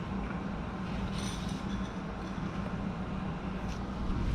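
Steady low mechanical hum from background machinery, with a faint light metallic clink about a second in.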